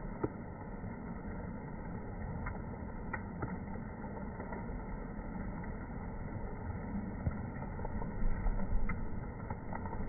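Steady, muffled outdoor background rumble, mostly low in pitch, with a few faint ticks and some louder low bumps about eight to nine seconds in.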